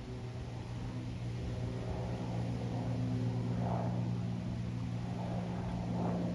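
Aircraft flying overhead: a steady low engine drone with several held tones.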